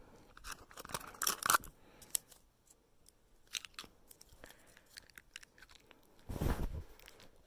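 Small plastic clicks and handling noises as a dental appliance is taken from a blue plastic case and pushed over the teeth, with a louder handling rustle about six and a half seconds in.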